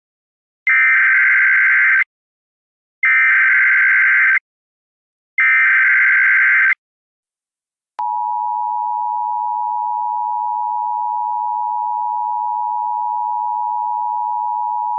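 Emergency Alert System SAME header: three short, identical bursts of buzzing digital data tones with brief gaps between them, encoding the alert (a Law Enforcement Warning). About eight seconds in, the steady two-tone EAS attention signal (853 and 960 Hz) begins and holds, announcing that a voice alert follows.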